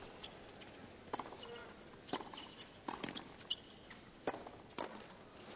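Tennis rally: a ball struck back and forth, racket hits and court bounces giving about six sharp pops a little under a second apart, over a faint crowd hush.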